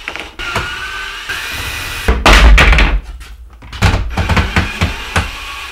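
Cordless drill backing screws out of a wooden form frame, its motor whining in short runs, with a loud heavy clunk about two seconds in and a run of wooden knocks near the end.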